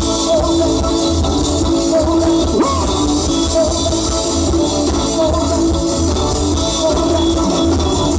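Live band music: electric guitar, bass guitar and drum kit playing a steady groove at full volume.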